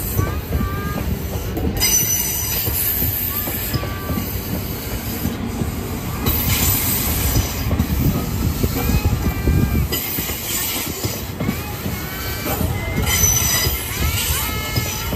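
E2 series Shinkansen trainset rolling through the depot tracks on a shunting move, its wheels squealing again and again in short high whines over a low rumble of wheels on rail. The rumble eases about ten seconds in while the squeals carry on.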